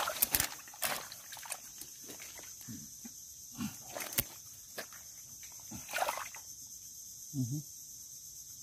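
Wet mud squelching and sloshing in scattered splats as a hand digs down into a mud crab's burrow among mangrove roots, over a steady high-pitched insect drone.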